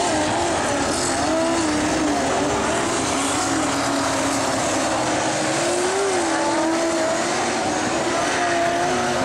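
Speedway saloon race cars running on a dirt oval: a constant wash of engine noise, with engine pitches rising and falling as the cars accelerate and ease off through the turns.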